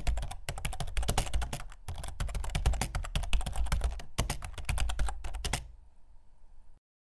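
Fast typing on a computer keyboard: a rapid run of key clicks with a brief pause about four seconds in, stopping about five and a half seconds in.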